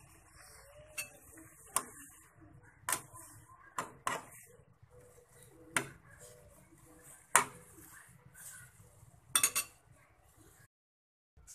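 Chopsticks knocking and clinking against an aluminium saucepan while stirring boiling instant noodles: a series of sharp, irregular clinks over a faint steady hiss.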